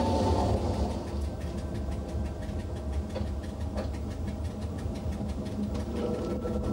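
Metre-gauge electric train of the Montreux–Oberland Bernois railway running along the track: a steady low rumble, louder for about the first second, with faint rapid clicks.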